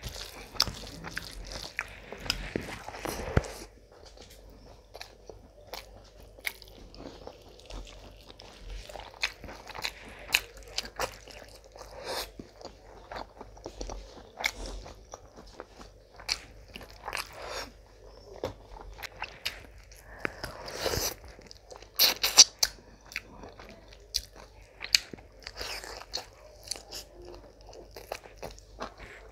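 Close-miked eating: wet chewing and mouth smacking on mouthfuls of rice and mutton curry eaten by hand, with crunchy bites and irregular clicks, louder bursts of crunching about a third of the way in and again past two-thirds.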